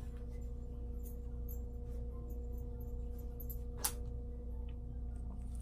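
A steady low hum with a few faint held tones, over which baby clothes on a plastic hanger are handled: a few faint taps and one sharp click a little before four seconds in.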